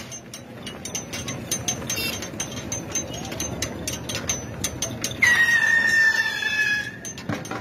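Bull-drawn metal akhara rig, a spoked-wheel frame dragged around a central post, clanking and rattling with a steady run of clicks. About five seconds in, a loud, high, drawn-out call lasts nearly two seconds, falling slightly in pitch.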